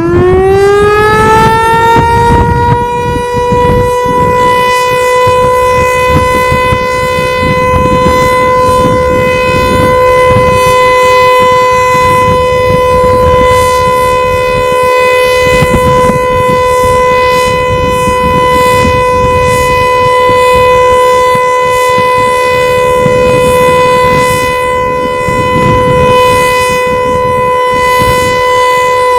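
Federal Signal Eclipse 8 outdoor warning siren sounding its short alert test: it winds up in pitch over the first couple of seconds, holds one steady, harmonic-rich tone, and starts to wind down right at the end. A low rumble runs underneath.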